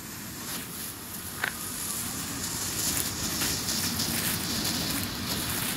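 Ground novelty firework burning on pavement, its jet of sparks giving a steady hiss that grows louder, with one short sharp pop about one and a half seconds in.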